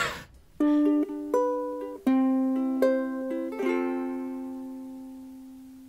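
Short intro music sting: about six notes picked out one after another, the last one left ringing and slowly fading away.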